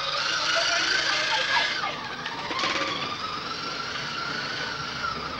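Electric motor and gearbox of a battery-powered ride-on toy Jeep whining as it drives, a steady high whine that wavers a little in pitch.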